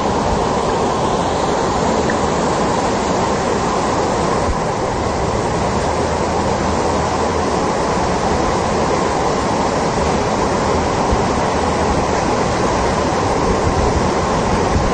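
Floodwater rushing through a street in a steady, unbroken rush.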